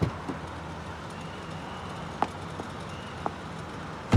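Land Rover Defender idling with a steady low hum. A car door thumps at the start, a few light clicks follow, and a louder door thump comes right at the end.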